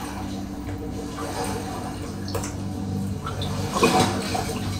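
Floodwater sloshing and swirling around the legs of someone wading through it, with a steady low hum underneath and a louder stretch of splashing about four seconds in.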